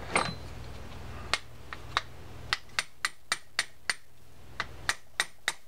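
A dozen or so light, sharp metal taps at an uneven pace, starting about a second in: a small hammer tapping the handle's pin into a D.A.M. Quick 440 spinning reel.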